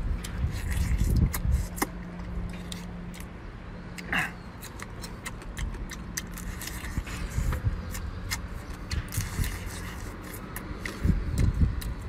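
Close-up eating of a cooked swimming crab: shell cracking, sucking and chewing, heard as many small sharp clicks scattered throughout. Under them runs a low steady rumble.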